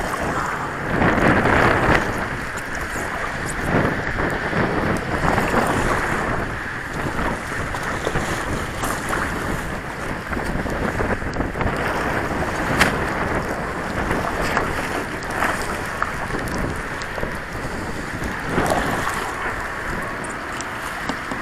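Wind buffeting the microphone over water splashing and lapping around a Hobie Pro kayak as it is paddled toward shore, with a few light knocks on the hull and fittings.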